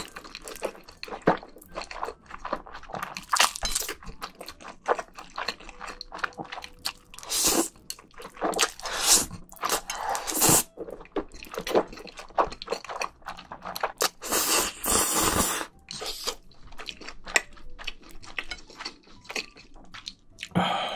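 Close-miked slurping and chewing of jjajangmyeon, wheat noodles in thick black bean sauce: a steady run of wet smacks and clicks, with one longer slurp of about a second a little past the middle.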